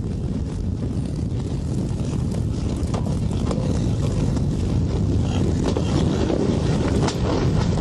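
Low, steady rumble of many hooves from a stampeding bison herd, growing slowly louder.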